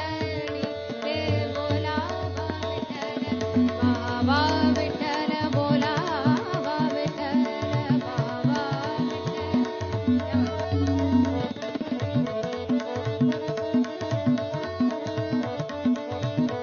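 Tabla playing a steady rhythmic cycle under a harmonium and a tanpura drone, in an instrumental passage of a Marathi devotional abhang. A woman's voice sings short ornamented phrases in the first half, then the instruments carry on alone.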